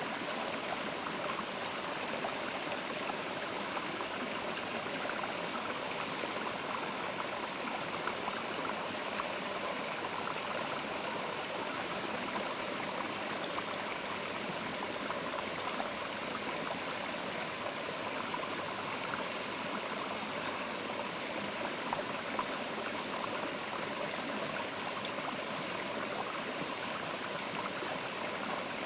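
Mountain river running steadily: an even, constant wash of flowing water.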